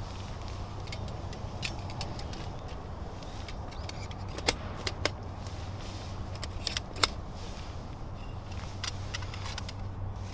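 Firewood burning in a small steel wood grill, crackling with irregular sharp pops, the loudest about four and a half and seven seconds in, over a steady low hum.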